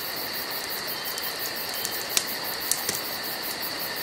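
Campfire crackling: a steady hiss broken by a few sharp pops, with a steady high-pitched tone underneath.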